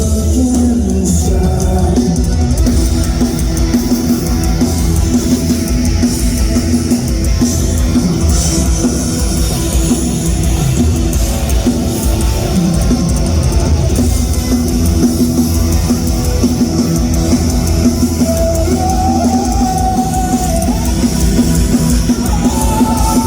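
Live rock band playing loud with drum kit and distorted guitars, an instrumental stretch with no clear vocals.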